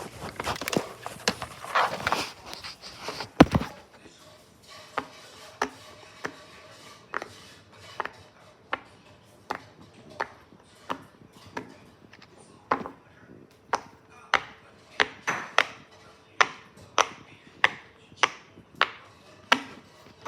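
A series of sharp wooden-sounding knocks or taps, roughly one every 0.7 s and a little closer together near the end. Before them comes a few seconds of rustling that ends in one louder knock.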